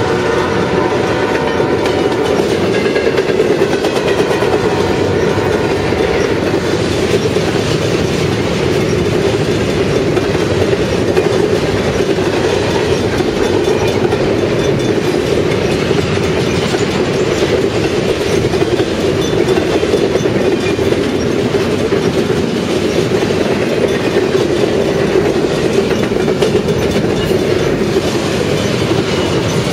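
Freight train of empty intermodal flatcars rolling past at speed: a steady, loud rumble and clatter of steel wheels on the rails. The locomotive's horn dies away in the first couple of seconds.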